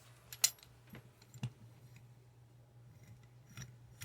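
A few sharp clicks and taps of small metal tools and parts being handled while valve keepers go into a small-engine cylinder head, the loudest about half a second in, over a steady low hum.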